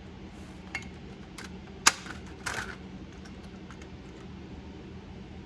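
A handful of sharp plastic clicks and snaps, the loudest about two seconds in, then a few faint ticks: the laptop's plastic bottom cover being pried off, its clips popping loose.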